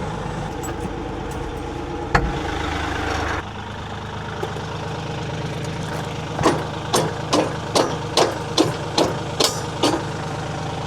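Kioti 3520 tractor's diesel engine idling, its sound dropping a little about three seconds in. In the second half come about nine evenly spaced hammer blows, a little over two a second, as a part is pounded into place.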